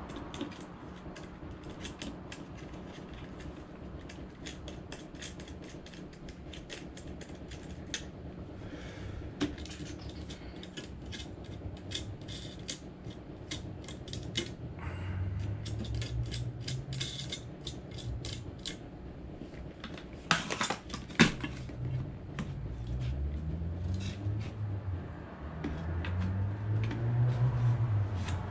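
Scattered small metallic clicks and clinks of an LED grow light fixture being handled as its thumb-screw knobs are unscrewed. About halfway in a low droning tone comes in and gets louder toward the end.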